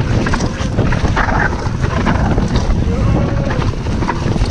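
Devinci Spartan enduro mountain bike rolling fast down a dirt trail: wind buffeting the microphone over the rumble of knobby tyres on dirt, with frequent short knocks and rattles from the bike over bumps.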